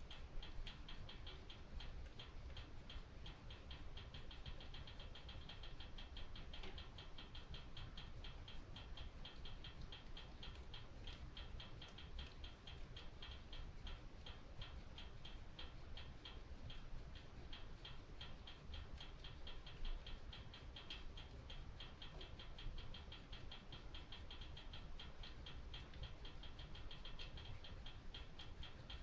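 Wood fire crackling in a stone fireplace: a steady stream of small, quick crackles, several a second, over a soft low rumble.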